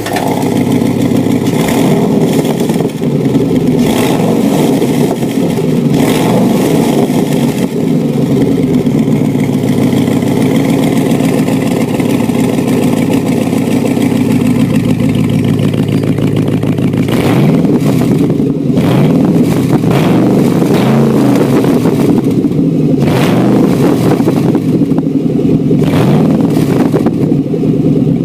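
Car engine revved again and again over a steady idle, its exhaust running through a Noweeds exhaust diverter set to a preset mode rather than stock. The rev blips are loud, a few spaced out early on and several in quick succession in the second half.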